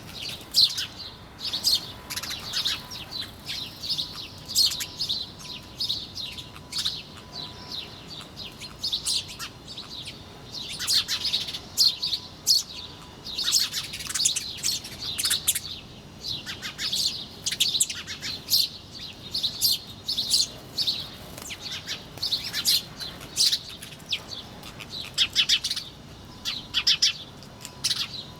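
A flock of small birds chirping continuously, with many quick, high chirps overlapping in busy clusters.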